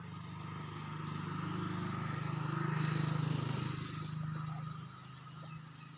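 A motor vehicle engine passing by: a low, steady hum that grows louder to a peak about halfway through, then fades.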